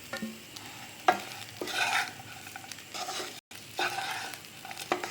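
Spatula stirring and tossing steamed rice-flour dumplings in a pan of hot tempering: sharp knocks of the spatula against the pan about once a second, with scraping and a light sizzle between.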